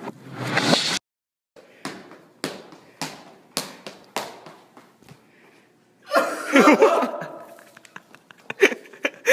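A run of five sharp slaps, about one every half second, then a loud burst of laughter, with more laughing near the end.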